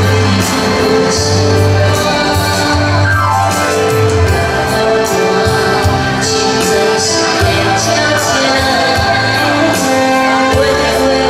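A woman singing a ballad into a microphone over live saxophone and electronic keyboard accompaniment, with a steady beat and a walking bass line. About three seconds in, one instrument slides down in pitch.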